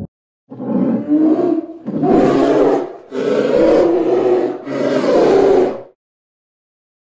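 Polar bear growling: a run of about four rough, breathy growls, each about a second long.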